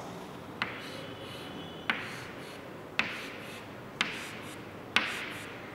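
Chalk tapping and scraping on a chalkboard five times, about once a second, as short cross-strokes are drawn one after another. Each stroke starts with a sharp tap and trails off in a brief scrape.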